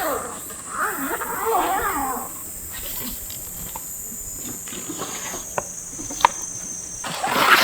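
Steady high-pitched buzzing of summer insects. A wavy, voice-like pitched sound in the first two seconds and a few sharp clicks a little past the middle.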